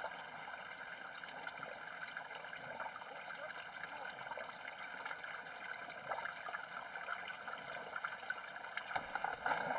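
Floodwater sloshing and splashing around vehicles wading through deep water on a flooded road: a steady wash of water with scattered small splashes.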